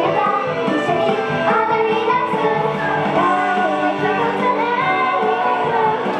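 Young girls singing a J-pop idol song together into handheld microphones over backing music.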